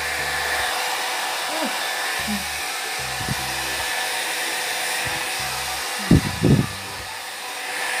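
Rainbow 850 W salon hair dryer with a metal body running steadily: an even blowing hiss with a steady hum. Two brief low thumps about six seconds in.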